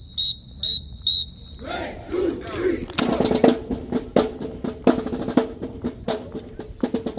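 Four short, sharp whistle blasts about half a second apart, then a group shout from the band, then a marching drumline starting up with repeated snare and drum hits over a held low note.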